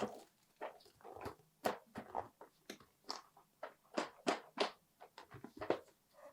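Package contents being handled in an unboxing: irregular short clicks, taps and crinkles, two or three a second.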